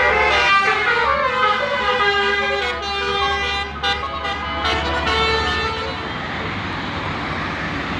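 A bus's basuri telolet horn, a multi-tone musical air horn, plays a melody of stepping notes, several sounding together. About six seconds in it stops and gives way to a steady noisy rush of vehicle sound.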